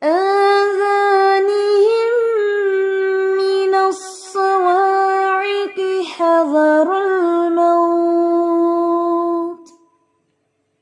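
A female voice reciting Quranic Arabic in a drawn-out, melodic tajweed style, holding long steady notes with small turns in pitch. There is a short break about four seconds in, and it stops near the end.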